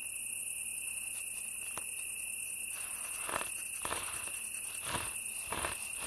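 Crickets chirring steadily in a high, fast trill, with a few soft scuffs about halfway through and near the end.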